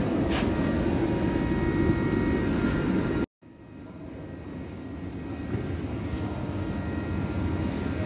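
Steady machine noise with a few faint steady tones above it. It cuts off abruptly a little over three seconds in, and a quieter steady noise then slowly grows louder.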